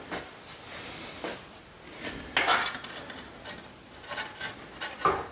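Light metallic clanks and scrapes of a thin 18-gauge steel bracket being bent in a bench vise and handled, the sharpest clank about two and a half seconds in and another near the end.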